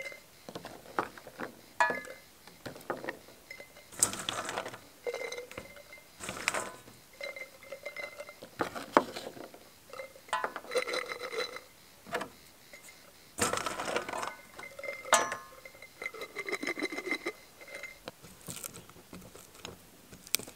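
Small hot peppers being dropped and pushed by hand into a glass jar: irregular clinks and taps against the glass, with rustling as they are packed down, and the jar ringing briefly after some of the knocks.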